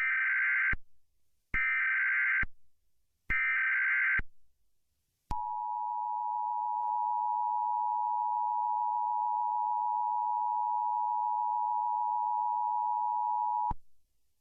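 Emergency Alert System tones for a test activation. Three short bursts of SAME header data tones, each under a second, are followed by the two-tone attention signal, held steady for about eight seconds before cutting off abruptly.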